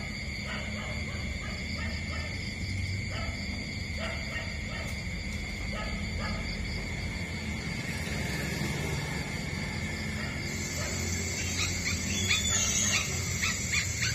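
Newborn puppies suckling at their mother dog, with faint repeated smacking clicks over a steady high background tone. A few short high squeaks come near the end.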